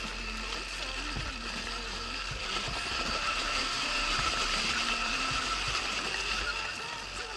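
Electric enduro motorcycle on the move: a steady high-pitched motor whine over the rumble of tyres and wind. It gets a little louder in the middle.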